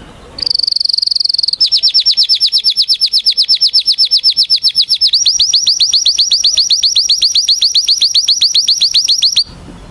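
Canary singing one long song phrase: a high buzzy trill, then a rapid run of short down-slurred notes at about a dozen a second, changing phrase partway through and stopping abruptly near the end.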